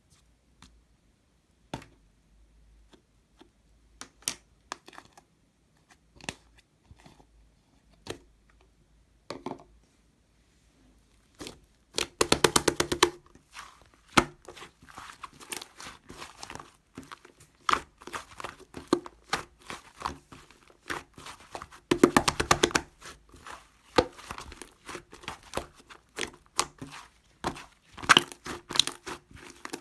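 Fluffy slime being squished and stretched by hand, making scattered soft clicks at first. About twelve seconds in, it turns to bursts of dense crackling and popping, which come again later and near the end.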